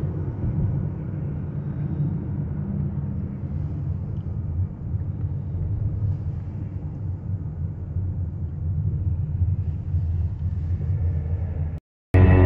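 Steady low rumble of road and engine noise inside a moving car's cabin. Near the end it cuts out for a moment and music starts.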